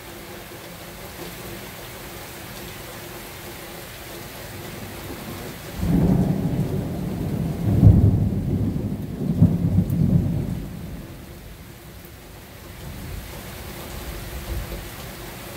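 Thunder rumbling over steady rain: a low rolling rumble starts about six seconds in, swells to two loud peaks, and dies away a few seconds later.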